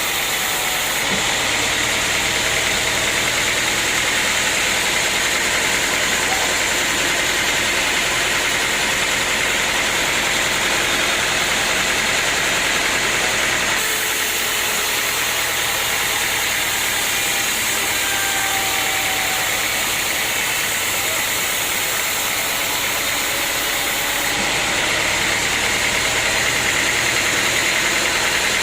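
Sawmill machinery running steadily: an engine-like drone under a constant high hiss. Its tone shifts about a second in, again near the middle, and once more near the end.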